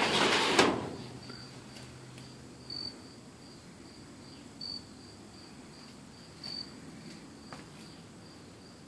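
A metal shed door swings open with a burst of noise and a knock in the first second. Then a quiet stretch with a short high chirp about every two seconds.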